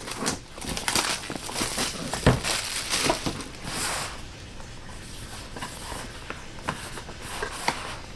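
Cardboard and plastic packaging of a Google Wifi box being handled and opened: irregular rustling, scraping and small clicks, with one thump about two seconds in. The handling gets quieter about halfway through.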